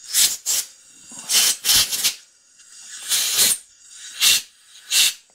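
Compressed air blow gun firing about seven short hissing blasts through the passages of a Honda lawn mower engine's carburettor body to clear its fuel and air channels; one blast about three seconds in is held a little longer.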